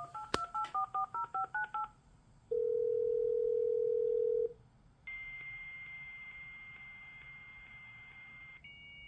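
Emulated dial-up modem connecting, played back by a Raspberry Pi modem: a click, then a quick run of about ten touch-tone dialing beeps, a two-second ring-back tone, and the answering modem's high steady answer tone with hiss. The tone changes to the start of the handshake near the end.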